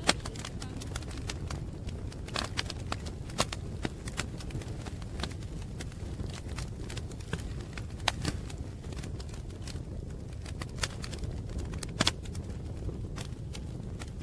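Wood fire crackling: scattered sharp pops and snaps at irregular intervals over a steady low rumble, a few louder snaps among them.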